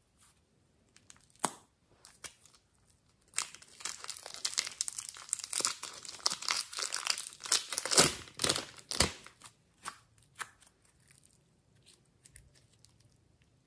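Thin plastic piping bag crinkling and tearing as it is peeled off a lump of soft red clay: a few single clicks, then a dense crackle from about three seconds in until about nine seconds, then fading to scattered clicks.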